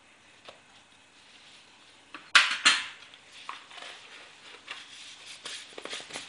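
Measuring spoon knocked sharply twice against a mixing bowl while baking powder is added to a cake batter, followed by lighter clinks and scrapes of kitchen utensils.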